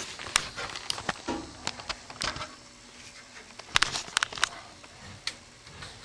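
Irregular clicks and knocks as an evaporator coil is slid back into its sheet-metal coil box, with a cluster of sharp knocks about four seconds in.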